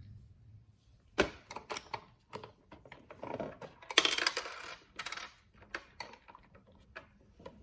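Plastic toy pieces clicking and clattering as they are handled and fitted together, with irregular sharp clicks and a busier rattle about four seconds in.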